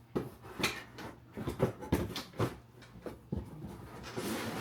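A string of light clicks and knocks as the plastic parts and attachments of a cordless upright vacuum are handled and fitted, with a brief rustle near the end.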